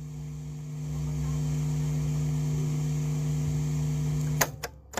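Steady electrical mains hum with a buzzy, many-toned edge, as from a sound system or recording chain, with a low rumble joining about a second in. Near the end the hum cuts off abruptly among a few sharp clicks.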